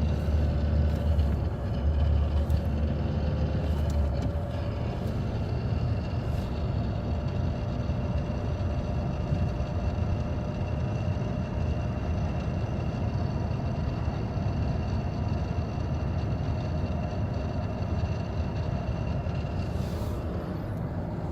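Renault Mégane IV running, with a steady low rumble and a thin, steady high-pitched whine over it; the rumble is heavier for the first few seconds, then settles. This is the odd noise suspected to come from the gearbox or clutch, later traced to the clutch slave cylinder and its clutch hose.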